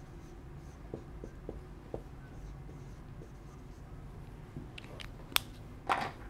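Quiet room tone with a few soft ticks, then several sharper clicks near the end, the loudest a single sharp click followed by a short clatter.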